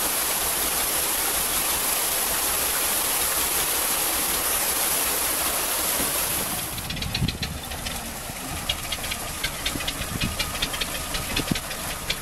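Steady rushing of water into a canal lock as it fills. About seven seconds in, this gives way abruptly to a narrowboat's diesel engine idling with a knocking, ticking beat.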